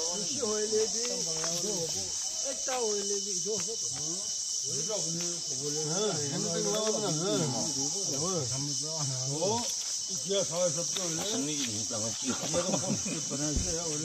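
A steady, high-pitched chorus of insects such as crickets, with people talking indistinctly in the background.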